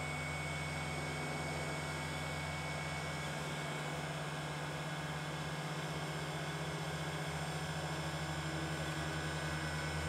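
Steady whirring hum of a small electric motor and fan, unchanging throughout.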